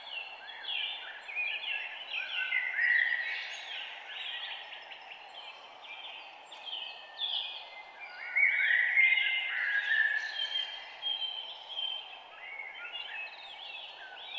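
Several songbirds chirping and twittering over one another in a dense, continuous chorus, busiest around the middle, over a steady low background hiss.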